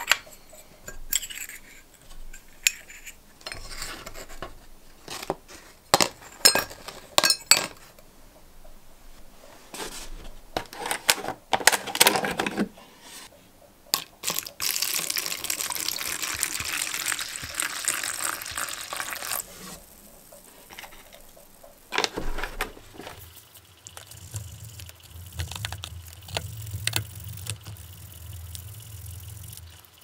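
Small brass lighter parts clicking and clinking as they are handled and set down on a wooden bench. About halfway through, a stream of water is poured into a plastic tub over the parts for about five seconds. Near the end, a low hum and a toothbrush scrubbing the parts in the liquid.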